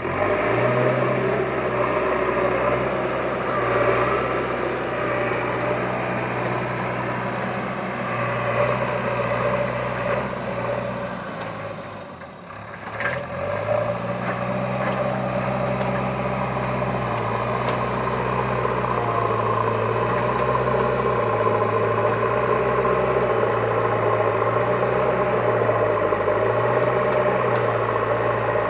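JCB 3DX backhoe loader's diesel engine running steadily. About twelve seconds in it dips briefly, then picks up. In the second half its speed steps up and down every second or two.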